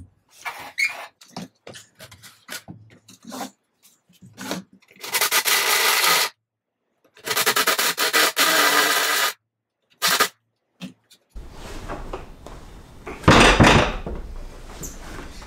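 Hand work on a wooden barn door and its steel hanger hardware. It starts with a run of light clicks and knocks, then two rasping tool runs, about one second and two seconds long. Near the end comes a loud knock with scraping and rumbling as the heavy pine door is shifted on its stand.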